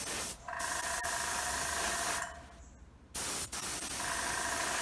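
Airbrush spraying in bursts of hissing air, with a whistling tone inside the hiss. One burst lasts nearly two seconds, and after a pause of about a second another begins about three seconds in.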